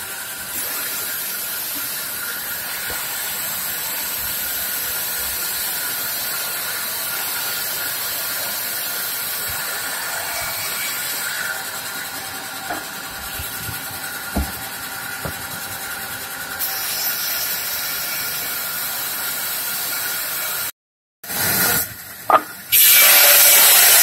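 A sawmill band saw runs steadily with a constant high whine as its blade rips through a log being fed along the table. A few wooden knocks come through in the middle. Near the end the sound cuts out for a moment and returns louder and harsher.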